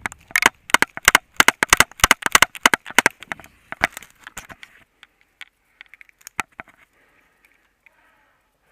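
Airsoft guns firing: a rapid, irregular string of sharp cracking shots for about five seconds, thinning to a few scattered shots afterwards.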